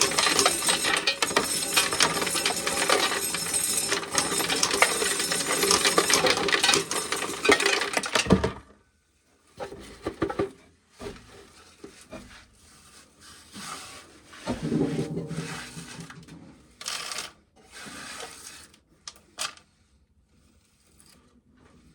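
A corn sheller stripping kernels off a cob, a dense metallic clatter of kernels rattling that cuts off suddenly about eight seconds in. Scattered shorter rattles of loose kernels and cobs follow.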